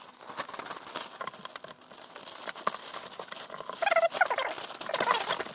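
Thin clear plastic bag crinkling and rustling as folded cloth trousers are slid into it by hand, with some high, wavering squeaks in the last second and a half.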